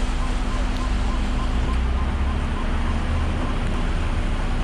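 Steady low rumble of a heavy diesel vehicle engine running, with a constant hum over it.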